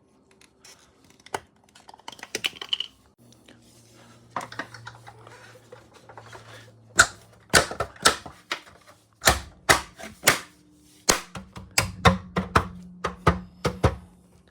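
Plastic wheel cover being pressed and knocked onto a car wheel. A few light clicks come first, then from about halfway a fast, irregular run of sharp knocks and snaps as the cover is seated onto its clips.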